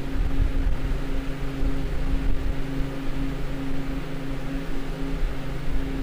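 Walk-in freezer's ceiling-mounted Bohn evaporator unit running: a steady fan whoosh over a low, even hum of several tones and a low rumble.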